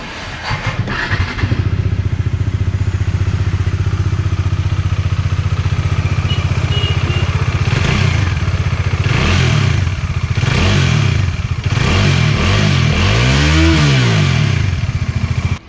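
Bajaj Dominar 400's single-cylinder engine starting about a second in and idling steadily, then revved in about four quick throttle blips that rise and fall, stopping abruptly near the end. It runs without the tappet (shim) clatter, cured by a newly fitted cylinder head assembly.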